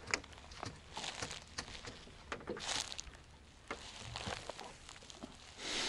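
Scattered light taps, knocks and rustles of a small tautog being handled and laid against the boat's gunwale to be measured, with a brief hiss now and then.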